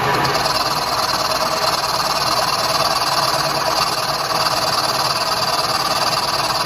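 Milling machine running a 15 mm cutter and feeding it across an engine block face to mill a flat between two cylinder liners. A steady machining whir, with a higher cutting hiss that sets in just after the start.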